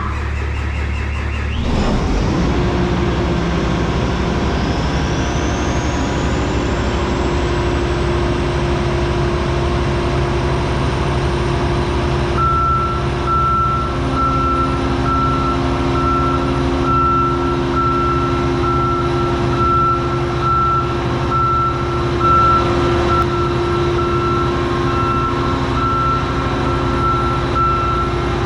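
Cold start of a John Deere farm machine's diesel engine: it catches about two seconds in and settles into a steady run. A high whine rises and levels off over the next several seconds. From about twelve seconds in, a warning beep repeats steadily over the engine.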